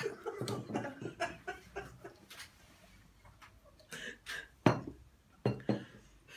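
Short, choppy muffled vocal noises from people chewing dried insects, then gulps of water and three sharp knocks of drinking glasses set down on a table, the first the loudest, a little over four and a half seconds in.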